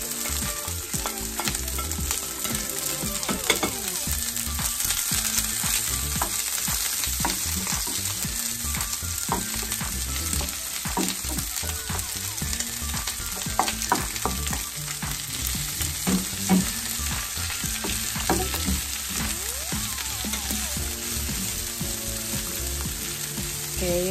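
Garlic, ginger and sliced onion sizzling in hot vegetable oil in a frying pan, with a steady hiss throughout. A spatula stirs and scrapes the pan, clicking against it now and then.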